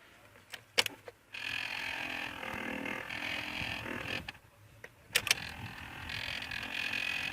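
Kia Sportage heater blower motor running with a rough whirring noise. It starts after a few clicks, stops about four seconds in, and starts again after more clicks. The noise comes with the ventilation on recirculation, and the mechanic puts it down to a motor that needs greasing inside.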